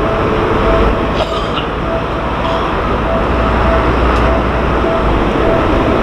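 Japanese level-crossing warning bell ringing in rapid, evenly repeated dings, over a steady low rumble.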